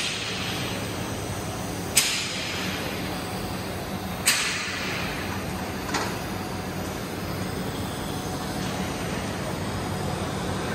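Steady electrical hum and hiss of TIG welding on a large steel pipe joint, in a big echoing shop. Three sharp clicks, about two seconds apart, each ring out briefly.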